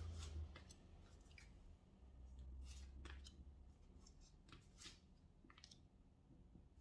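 Tarot cards being handled and dealt onto a table: a string of faint, short card snaps and slides, irregularly spaced about every half second to a second, over a low steady hum.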